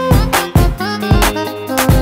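Upbeat instrumental music with a steady drum beat and a stepping melody: the instrumental break between verses of a children's song.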